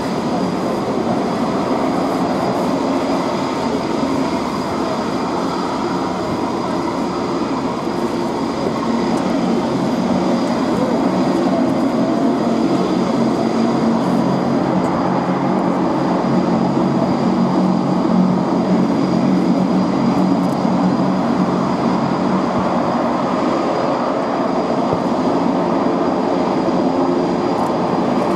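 Four Europrop TP400-D6 turboprop engines of an Airbus A400M running at taxi power, their eight-bladed propellers making a steady drone with a faint high whine, growing a little louder about nine seconds in.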